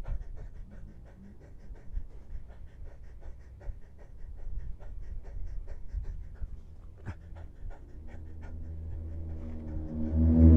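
Bicycle ride heard through an action camera: low wind rumble with a fast, regular ticking throughout, and a motor vehicle's engine hum that grows louder near the end and peaks just before it stops.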